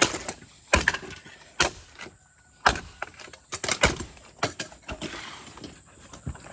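An alarm clock being smashed: a series of sharp, irregular knocks and clatters of hard casing, about one a second, with broken pieces rattling between the blows.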